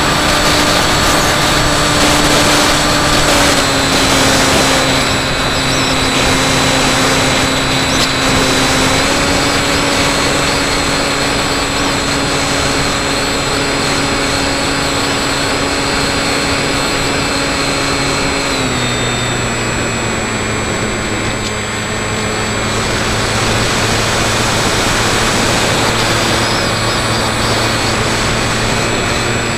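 Electric motor and propeller of a Skywalker X5 RC flying wing heard through its onboard camera: a steady whine over rushing wind noise. The motor's pitch shifts a few times and drops clearly about two-thirds of the way through.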